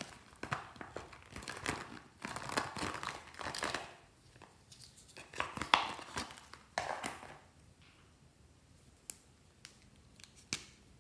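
Crinkly rustling of a holographic plastic pouch being handled and zipped open, in irregular bursts with one sharp click about six seconds in. The rustling stops about seven seconds in, leaving a few separate light clicks near the end.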